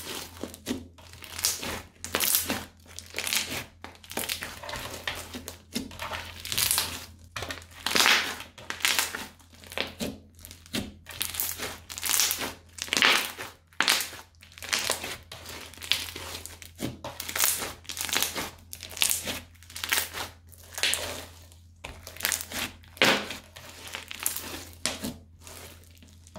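Crunchy bead-filled slime squeezed and kneaded by hand, giving repeated crackling, squishing crunches about once a second.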